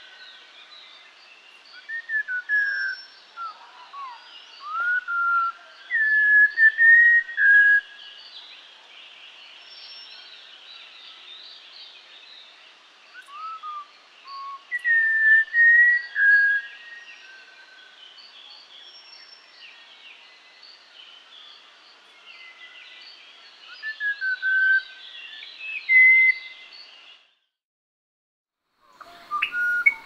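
Malabar whistling thrush singing: clear, rambling whistled phrases that glide up and down, in three bouts, over faint high chirping from other birds. The song cuts off about three seconds before the end, and another bird's whistled song begins just before the end.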